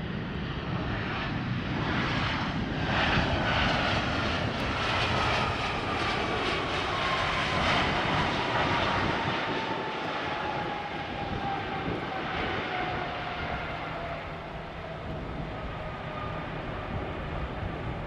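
Jet engines of a Volaris Airbus A320 airliner rolling along the runway past the listener: a steady roar that swells to its loudest a few seconds in and then eases off as the jet moves away. A whine above the roar falls slowly in pitch throughout.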